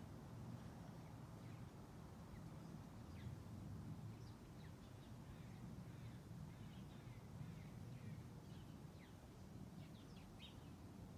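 Near-silent outdoor ambience: a faint low rumble of background noise with scattered, faint songbird chirps, a small cluster of them near the end.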